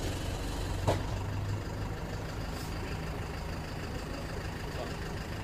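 Box truck's engine idling, a steady low hum heard from inside the cab, with a single sharp click about a second in.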